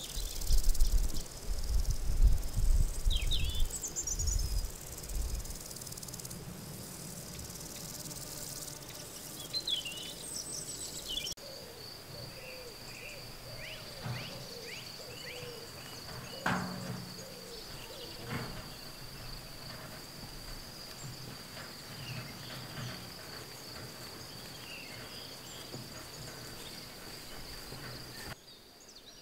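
Countryside ambience: birds chirping, with a low rumble of wind on the microphone in the first few seconds. From about a third of the way in, a steady high insect trill like crickets runs on under scattered short bird calls.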